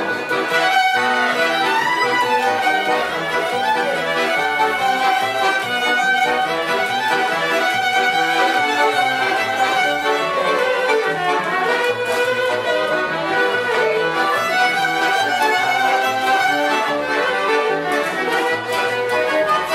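Góral (Polish highland) folk trio playing an instrumental tune: fiddle carrying the melody over accordion and double bass, with a steady, even bass beat.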